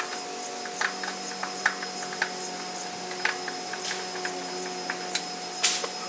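Scattered light clicks and taps, about eight at irregular moments, from hands working at the base of an open air-conditioner condenser cabinet, over a steady hum.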